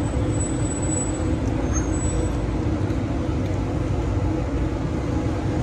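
Steady low rumble of motor vehicle traffic, an engine-like drone that holds level throughout.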